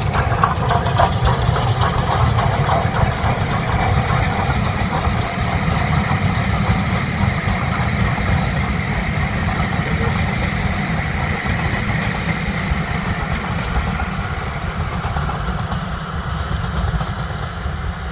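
A steam-hauled passenger train, headed by BR Standard Class 5 locomotive No. 73082, running past close by with a heavy, continuous rumble. The sound fades slowly as the train draws away.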